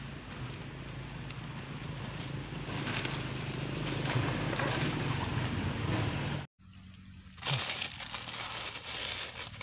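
Dry leaf litter rustling and crackling as hands cut and pick mushrooms from it, over a steady low hum. The sound drops out briefly about six and a half seconds in.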